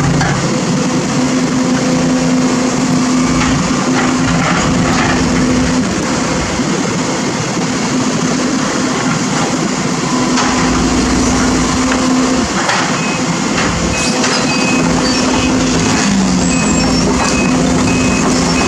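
Sumitomo SH210 hydraulic excavator's diesel engine running steadily while it works, with a low hum that drops out and comes back a few times and a few light knocks.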